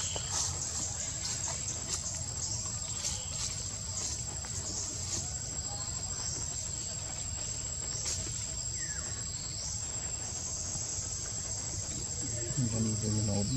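Steady chorus of insects, a continuous high-pitched buzz with one held shrill tone. A brief low voice is heard near the end.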